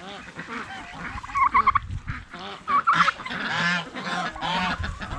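Domestic geese honking, a run of short calls one after another, among other poultry.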